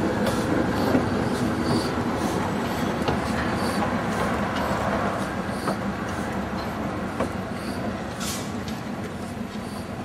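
Ex-Sierra Leone Railway Hunslet 2-6-2 tank locomotive No. 85 running slowly past with wagons: a steady rumble with slow, regular exhaust beats and the odd click of wheels over rail joints. It grows fainter as it moves away.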